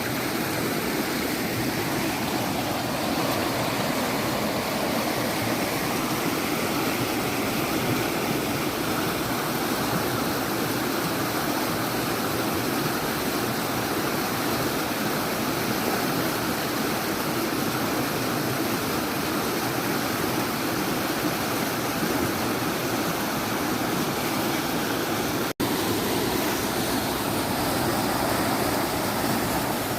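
Fast-flowing water rushing steadily, broken once by a split-second dropout late on.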